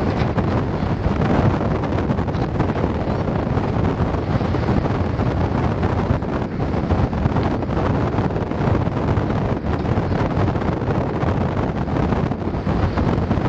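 Wind buffeting the microphone on the deck of a sailing yacht at sea: a steady, loud rushing noise, with the sea under it.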